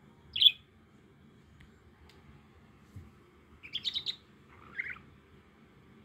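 Small caged pet bird chirping: one sharp, loud chirp about half a second in, then a quick run of chirps near the four-second mark and a lower call just after.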